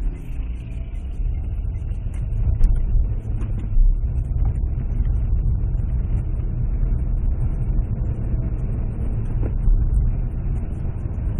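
Car on the road: a steady low rumble of engine and road noise, with a few short knocks.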